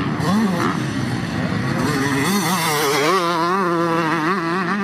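Motocross dirt bike engine revving, its pitch rising and falling over and over as the throttle is opened and eased.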